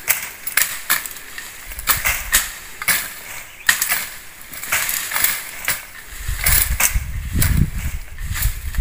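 Brush being cut by hand: repeated sharp chops and snaps of blades through woody stems, about one or two a second, with rustling of branches and leaves. A low rumble joins in for the last few seconds.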